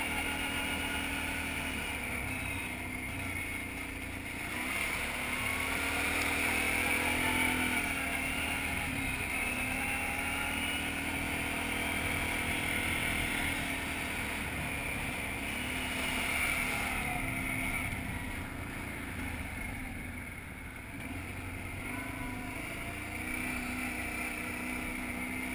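Kawasaki ATV engine running under way, rising and falling in pitch several times as the rider speeds up and eases off.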